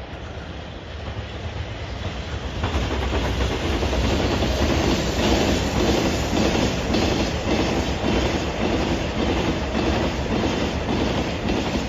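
Freight train of EH200 electric locomotive and Taki 43000/Taki 1000 tank wagons passing at high speed, its wheels clattering over the rail joints in an even, rapid clickety-clack. The sound grows louder over the first few seconds as the locomotive comes up, then stays loud as the tank wagons pass.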